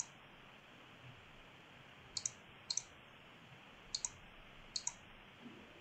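Computer mouse clicking: about six faint, separate clicks spread across a few seconds, each heard as a quick pair of ticks, over low background hiss.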